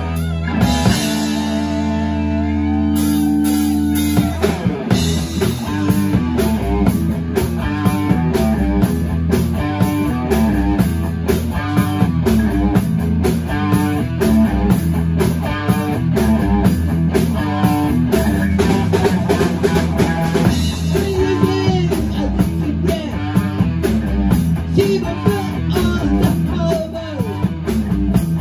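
Rock band playing live: two electric guitars, electric bass and drum kit. A chord rings out held for about four seconds, then the band goes into a steady, repeating riff with the drums driving it.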